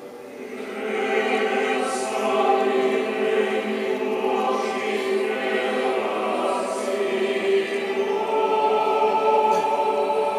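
A choir singing sacred music in long, held notes, swelling in about a second in and then carrying on steadily.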